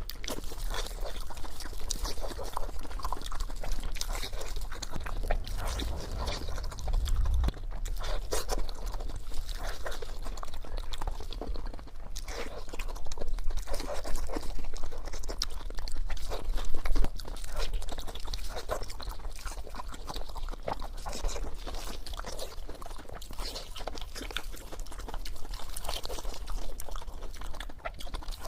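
A person chewing and crunching crispy fried pork, with dense, irregular crunches throughout.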